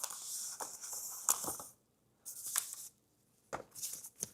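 Keyboard box being opened: packaging rustling and tearing, with a few short sharp scrapes, broken by two brief silences.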